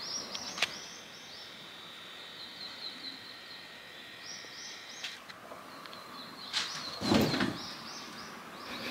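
Small birds chirping outside in short runs of quick, high, repeated notes. About seven seconds in there is a brief soft thump as the cat jumps up onto a fabric cat tower.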